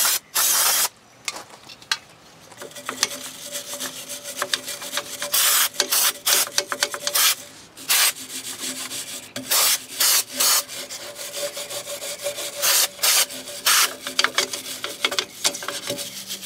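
A stiff brush scrubbing a drum-brake backing plate and hub, cleaning them with brake cleaner. Short, loud hisses of the aerosol brake cleaner come again and again between the scratchy brush strokes.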